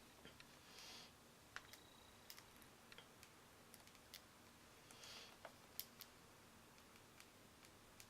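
Faint, scattered little clicks of budgies' beaks pecking at food, with two brief soft rustles.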